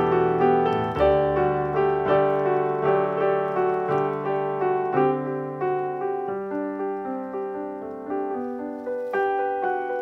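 Background solo piano music, single notes and chords struck a couple of times a second and left to ring.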